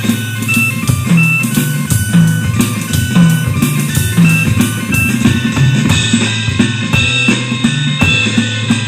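Psychedelic blues-rock instrumental: electric guitar and a stepping bass line over a busy drum-kit part, with a drummer playing along on the kit.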